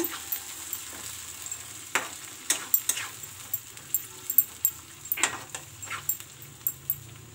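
Ground tomato and onion masala sizzling in hot oil in a nonstick frying pan while a spatula stirs it, with irregular scrapes and taps of the spatula against the pan.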